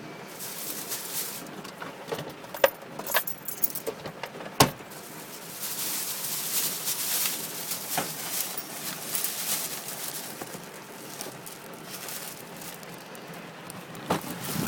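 Rain and hailstones pattering on a car's body, with scattered sharp knocks from individual stones; the hiss swells and eases, and the knocks cluster a few seconds in with one more near the end.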